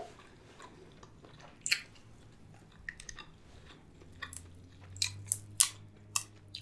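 Close-miked eating of seafood-boil food (crab, lobster, shrimp): chewing and biting with scattered short sharp clicks, coming thicker and louder in the last couple of seconds. A low steady hum comes in about four seconds in.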